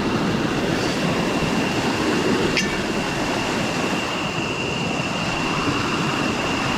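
River water rushing steadily, with a thin, steady high-pitched whine above it and a single short click about two and a half seconds in.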